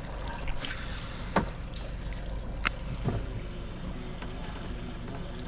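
A boat's motor running steadily at low speed, with a few sharp clicks over it.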